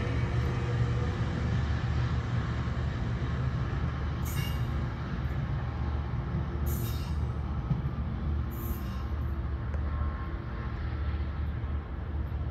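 Sounder commuter train, hauled by an EMD F59PHI diesel locomotive, moving away: a steady low rumble of the diesel and the bilevel coaches rolling on the rails. Three short high-pitched sounds come partway through.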